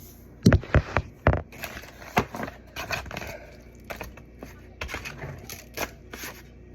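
Handling noise from seasoning raw chicken pieces by hand: four sharp knocks close together about half a second in, then scattered lighter clicks and rustling.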